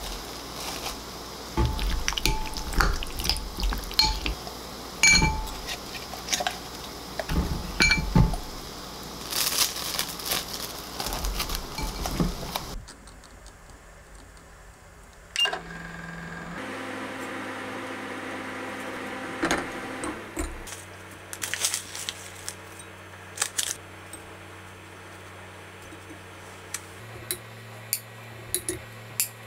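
Kitchen prep sounds. First plastic wrap rustles and a spoon knocks and scrapes against a glass bowl while chicken is mixed. About halfway a click comes from the AX-CA450 microwave oven's controls, then the oven runs with a steady hum for a few seconds, followed by light clinks of a spoon on glass.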